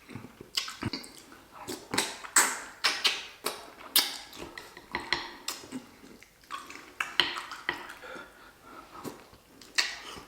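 Close-miked eating sounds from a seafood boil: many short wet smacks, clicks and sucking sounds in an irregular run.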